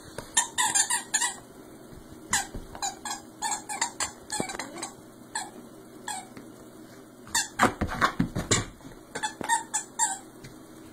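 Squeaker in a dog toy squeaking in quick runs of short squeaks as a husky chews on it, loudest around eight seconds in.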